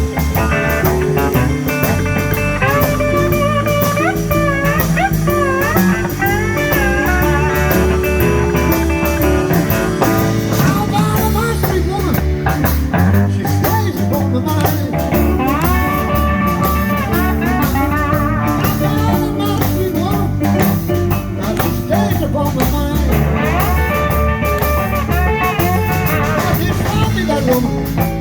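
Live blues band playing an instrumental break: a lead guitar solo with bent, sliding notes over bass and drums keeping a steady shuffle.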